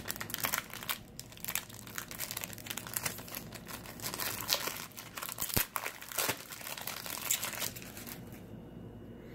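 Foil wrapper of a trading-card pack crinkling and tearing as it is worked open, in irregular crackly rustles that die down about eight seconds in.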